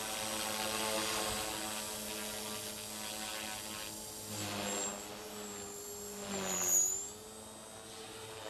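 Align T-Rex 450 Pro electric RC helicopter in flight: a steady whine of motor and rotor blades. It swells louder twice, about halfway through and near seven seconds, and the pitch dips briefly on the second swell.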